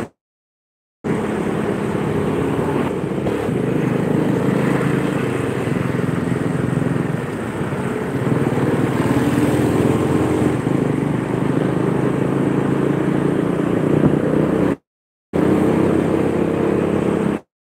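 Motorcycle engine running steadily while riding, heard from the rider's helmet camera along with road and wind noise. The sound cuts out completely for about the first second and again briefly near the end.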